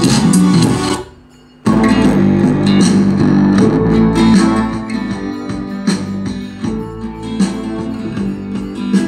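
Recorded song playing through a TDA7850 four-channel amplifier board; the music cuts off about a second in, and after a brief pause another song starts.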